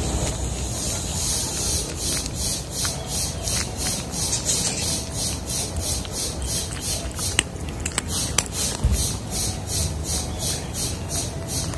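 Two kittens chewing dry kibble close to the microphone: a steady run of crunches, about four a second.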